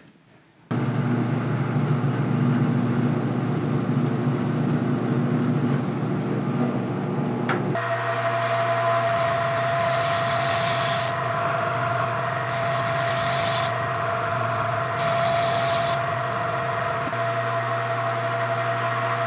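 Metal lathe starting up about a second in and running with a steady motor hum. About eight seconds in the cutting tool goes into the spinning front hub, adding a steady tone and a hiss of cutting that comes and goes in several passes.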